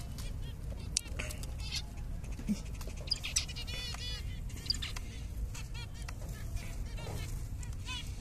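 Zebra finches chirping: short calls repeated in quick runs, over a steady low rumble.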